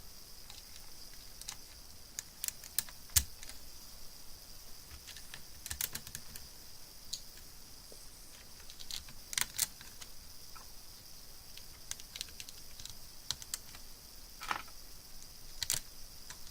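Lego bricks being handled and pressed onto a model: irregular sharp plastic clicks, some in quick pairs, over a faint steady hiss.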